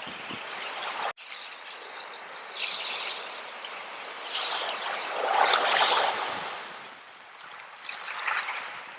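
Sea water washing over and through a bed of seashells, surging and falling back three times, loudest about halfway through. A brief dropout about a second in.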